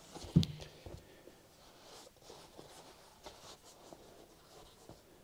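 Handling noise from a leather-covered motorcycle seat being turned over and set on a matted workbench: a soft thump about half a second in, then faint rustling and light scuffs.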